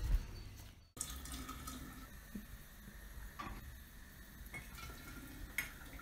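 Faint trickling of liquid with a few light clinks of glass as a glass jar is filled with birch sap. A louder burst of outdoor noise in the first second cuts off suddenly.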